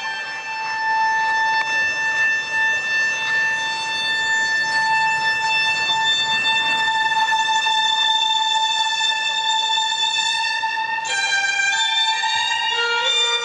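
Figure-skating program music led by a violin, holding one long high note for about ten seconds, then moving to new notes near the end.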